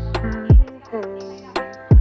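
Background music with a steady beat: a deep kick drum falling in pitch about once a second, quick ticking hi-hats, and sustained melodic notes that change pitch between the hits.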